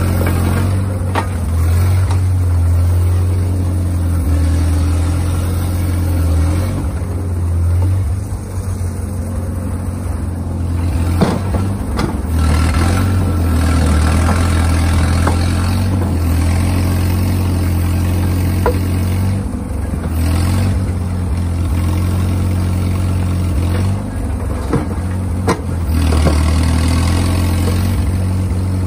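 Schield Bantam T35 cable excavator's LeRoi gasoline engine running steadily under digging load, with a few sharp metallic clanks from the cable gear and backhoe bucket.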